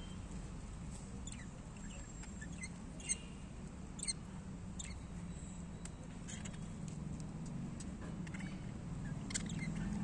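Budgerigars giving short, sharp chirps and clicks, a scattered handful, the loudest about three and four seconds in, over a steady low hum.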